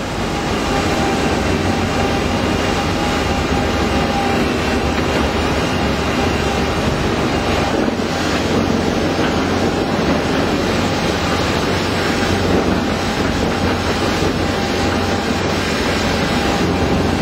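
WEIMA WLK15 single-shaft shredder running steadily as its toothed rotor tears up sheets of cellulose pulp. It makes a loud, dense, unbroken mechanical noise.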